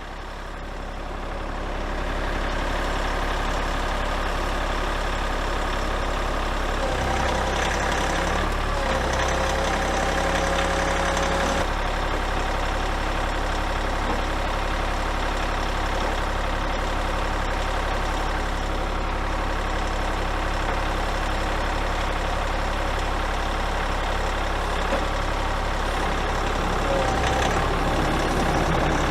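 Kioti 35-horsepower tractor's diesel engine running steadily, building up over the first couple of seconds. Between about seven and twelve seconds in, a higher whining tone joins it and shifts in pitch.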